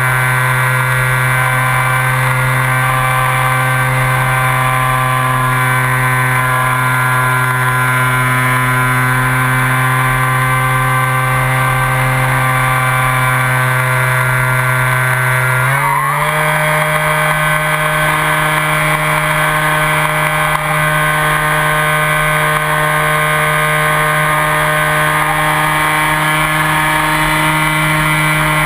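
Skywalker RC plane's electric motor and propeller, heard from on board, running with a steady whine. A little over halfway through, the pitch steps up and holds as the motor speeds up.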